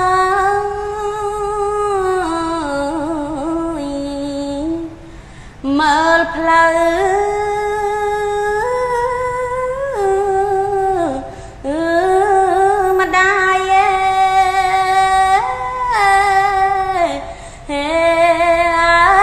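A woman's voice chanting Khmer smot, unaccompanied: long, ornamented notes held in slow phrases, broken by short pauses for breath about every six seconds.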